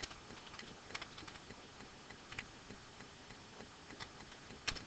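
Computer keyboard typing: faint, irregular keystrokes, with one sharper click near the end.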